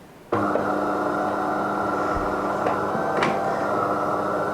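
De'Longhi Eletta espresso machine's pump running with a steady electric hum while dispensing an extra long coffee. It starts abruptly about a third of a second in and runs at an even level.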